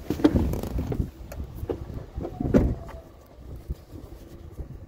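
Vehicle sounds: a low rumble with scattered knocks and clunks, busiest in the first second and quieter later.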